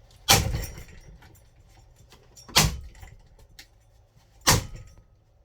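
Three hard blows struck against a ceiling fan's blade, about two seconds apart, each with a short rattling ring-out as the fan shakes.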